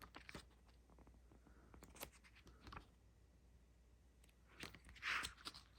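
Near silence with faint handling noises from the art book: scattered light clicks and a brief rustle about five seconds in.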